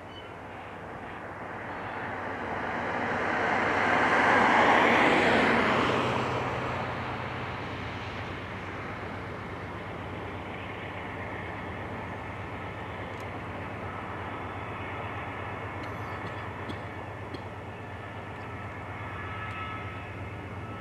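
Freight cars of a slow uphill train rolling across a railway overpass, a steady rumble. About four to six seconds in, a louder pass-by noise swells up and fades away. A few faint ticks come later, and faint high tones near the end.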